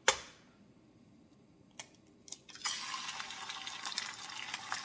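An egg cracked on the rim of a nonstick frying pan, then, about two and a half seconds in, it drops into hot olive oil and starts sizzling with a steady crackle.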